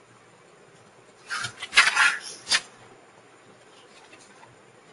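A brief clatter of small knocks and clicks, lasting about a second and ending in a single sharper click. Faint steady hiss before and after.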